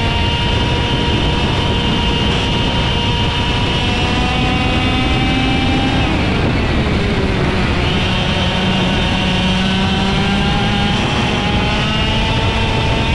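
IAME X30 125cc two-stroke kart engine running at racing revs over a steady low rush. Its pitch dips about six seconds in as it comes off the throttle, then climbs again as it is driven back up.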